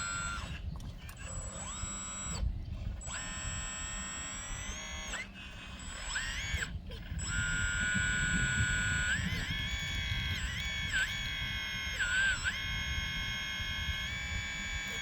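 Whine from an RC John Deere 200D LC hydraulic excavator's hydraulics. The sound is a cluster of steady high tones that dip in pitch and briefly drop out several times as the machine works, over a low background noise.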